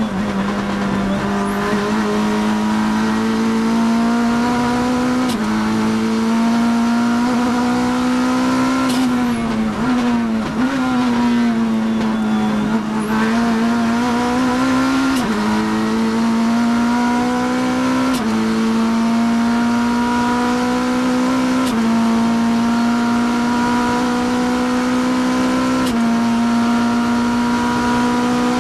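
Kia GTS race car's engine, heard from inside the cockpit, running hard through the gears. It upshifts twice early on, then slows with downshift blips from about 9 to 13 seconds in while braking for a corner. It then pulls hard through four upshifts about 15, 18, 22 and 26 seconds in, each a rising note that drops at the shift.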